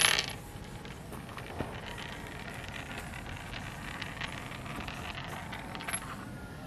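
Spent 9mm brass cases clinking on a tabletop: a ringing clink fading away at the start, then scattered light metallic tinkles, with a slightly louder one near the end.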